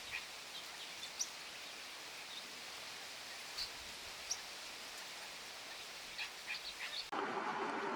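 Scattered short, high bird chirps over a steady outdoor hiss, with a quick run of calls near the end. About seven seconds in, the sound cuts to a louder steady noise with a low hum.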